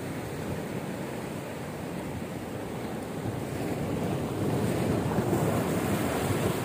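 Sea waves washing and breaking against shoreline rocks, with wind on the microphone; the surf grows louder about four seconds in.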